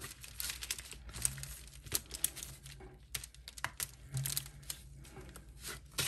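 Silicone mold being peeled back off a cured epoxy resin casting, with gloved hands pressing and pulling it: a string of small, irregular crackles and ticks as the silicone pulls free.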